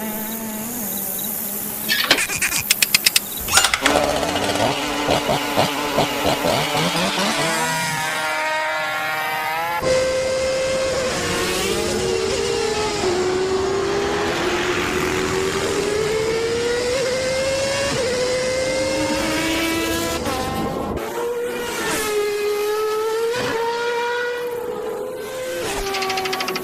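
Cartoon sound effects of a dragonfly and a wasp in flight, their wing buzzing styled like racing engines, gliding up and down in pitch. A fast rattle of clicks comes about two seconds in.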